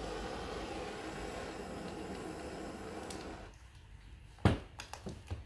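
Handheld gas blowtorch flame hissing steadily, then shut off and dying away about three and a half seconds in. About a second later comes a sharp knock, the loudest sound here, followed by a few light clicks.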